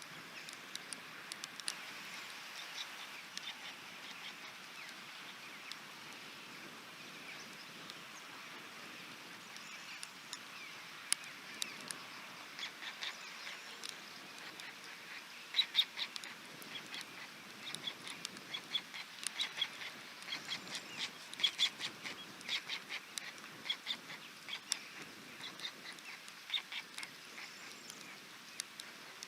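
White storks at their nest, heard over a steady hiss of rain. From about halfway there is a run of irregular sharp clicks and rasping calls from the storks.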